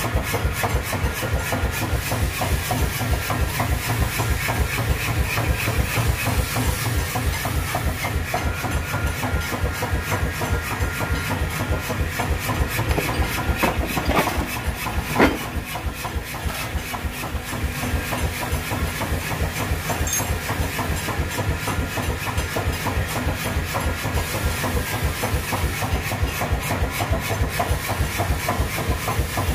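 Forge-workshop machinery running with a fast, steady rhythmic clatter, with a single sharp metallic knock about fifteen seconds in.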